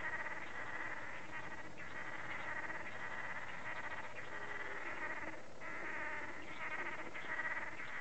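Steady forest chorus of small calling animals, a dense high pulsing drone, with a few faint short low whistled notes.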